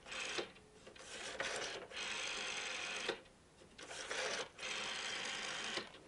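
Rotary dial of a wall-mounted telephone being turned and released, whirring and clicking back as the number 100 is dialed: a short run at the start, then two longer runs of about two seconds each for the zeros.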